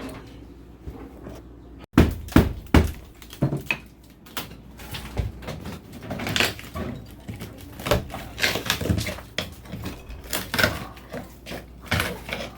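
A series of irregular knocks and clunks, like metal being handled and tapped, starting about two seconds in after a quiet stretch.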